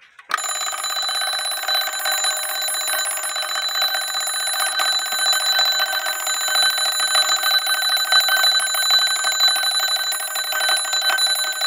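The mechanical alarm of a 1901 Ansonia clock going off: its hammer rattles very rapidly against the bell in one continuous ring. It starts abruptly just after the beginning and keeps an even pitch and loudness.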